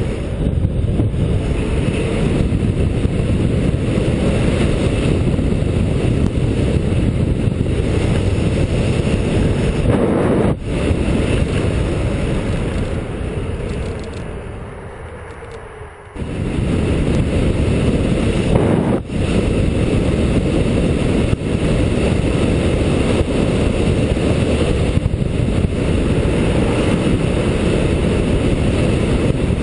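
Wind rushing over a helmet-mounted GoPro's microphone as an electric bicycle is ridden fast under full power. The rush fades away for a few seconds around the middle, then comes back suddenly.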